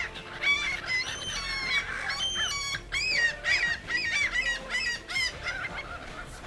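A rapid series of short, high-pitched bird-like calls, each bending up and down in pitch.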